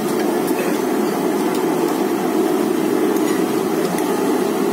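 A steady, loud mechanical drone with no change in level, with a few faint clicks over it.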